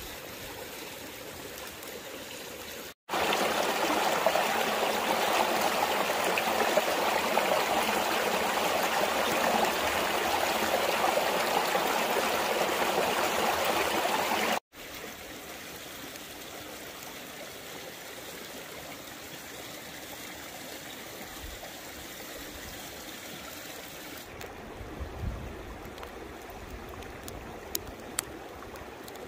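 Small rocky stream rushing over stones, loud and close for about twelve seconds in the middle, with a quieter steady water sound before and after, and a few faint clicks near the end.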